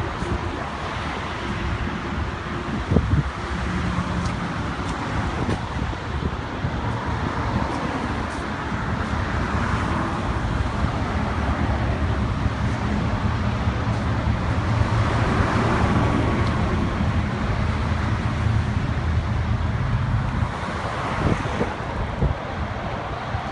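Car engines running and moving at low speed, a steady low drone that swells through the middle and eases off near the end, with some wind on the microphone and a few light knocks.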